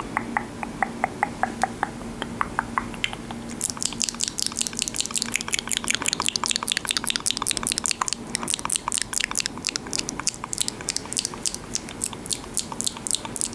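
Latex-gloved fingers making sticky, clicky sounds close to the microphone. There are spaced clicks at first, then from about three and a half seconds in a faster, denser run of crisp clicks.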